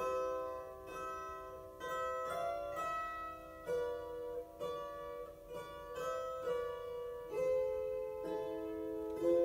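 An ensemble of lyres playing a slow melody in harmony: plucked notes and chords start about once a second and ring on, overlapping one another.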